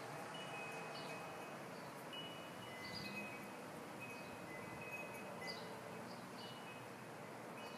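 Wind chimes tinkling: scattered short, high ringing notes over a steady hiss.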